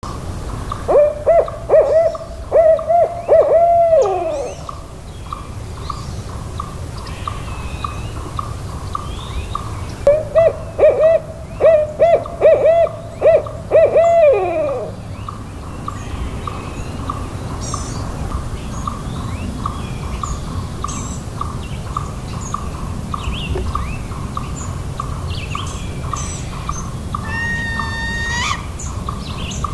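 An owl hooting in two rhythmic series of about seven hoots each, the last note of each series sliding down in pitch. Behind it runs a steady, regularly pulsing call, with scattered small-bird chirps, one of them a longer rising call near the end.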